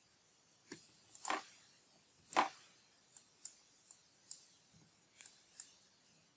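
Faint, irregular clicks of a computer keyboard and mouse as code is copied, pasted and edited: a small cluster about a second in, the loudest click at about two and a half seconds, then lighter ticks every half second or so.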